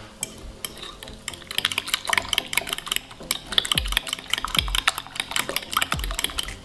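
A metal fork whisking eggs and milk in a glass bowl: fast, continuous clicking of the fork against the glass.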